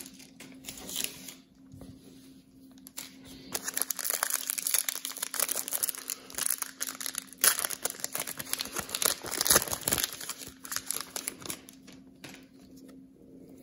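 Plastic wrapper of a 2019 Panini Prizm football card pack being torn open and crinkled by hand. A dense run of crackling starts a few seconds in and dies down shortly before the end.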